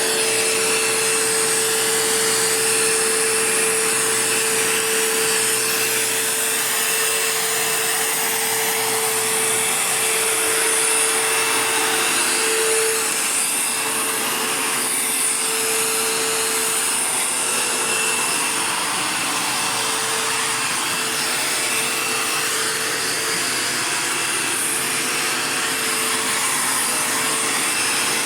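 Dirt Devil Jaguar Feather Lite bagged vacuum cleaner running steadily, its motor holding one tone over a rushing hiss of air.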